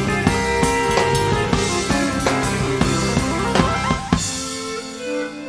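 Live progressive rock band playing an instrumental passage, with the drum kit hitting hard and steadily. About four seconds in it breaks off on a last accented hit, leaving only sustained, string-like chords.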